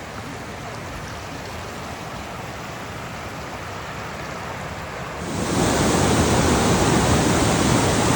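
Rushing water of a waterfall, a steady hiss that jumps abruptly much louder and fuller about five seconds in, then holds steady.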